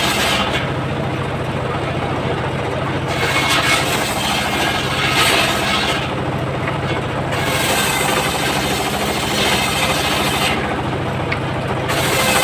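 Homemade circular sawmill running steadily while ripping a coconut palm log. Over a constant low hum, the high hiss of the blade cutting the wood comes and goes, dropping away three times for a second or so.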